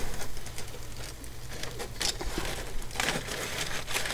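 Aluminium foil crinkling in scattered crackles as foil-wrapped ribs are handled, over a low steady hum.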